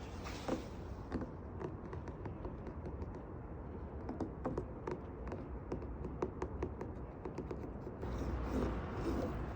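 Light, irregular tapping clicks on a hard surface, several a second, over a steady low rumble that grows louder near the end.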